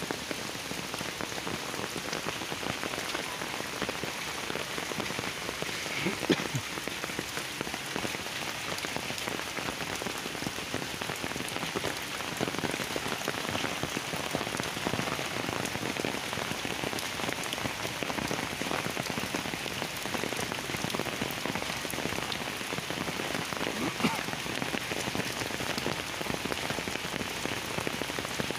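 Heavy rain falling steadily onto leaves and flooded ground, an even hiss throughout. Twice a single sharper tap stands out above it.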